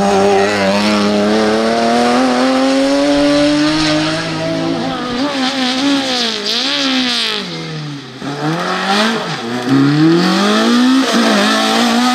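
Rally car engines at full throttle. First a BMW Z3 coupé rally car's engine pulls with a steadily rising note. Then a small hatchback rally car revs hard with quick rises and falls in pitch through its gear changes, drops off near eight seconds, and climbs through the gears again.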